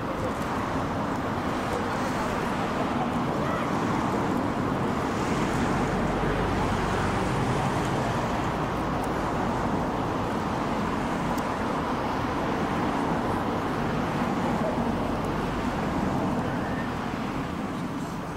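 Aircraft jet engines running, a steady, noisy rumble that swells a few seconds in and begins to fade near the end.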